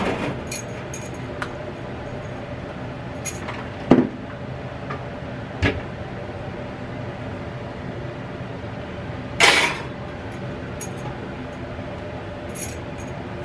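Kitchen handling sounds: a few sharp knocks as items are set down on the counter and toaster oven, and a short scrape about nine and a half seconds in, over a steady low hum.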